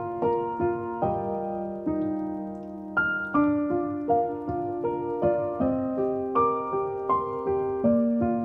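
Background piano music: a gentle melody of struck notes, each left to fade, about two to three notes a second.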